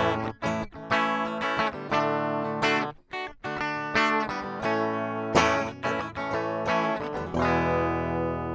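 Ibanez AR420 electric guitar played with a clean tone, flanger off, on the bridge humbucker with the tone knob full up for a bright sound. A quick run of picked and strummed chords with a couple of brief breaks, and a last chord left ringing and fading near the end.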